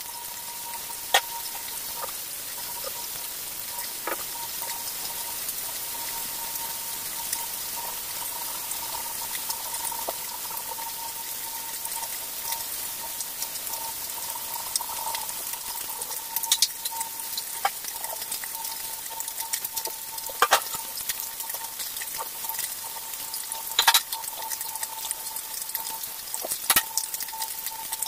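Small whole fish frying in hot oil in a nonstick pan on a gas burner: a steady sizzle, with the oil spitting in sharp pops every few seconds, more of them in the second half. A faint steady tone runs underneath.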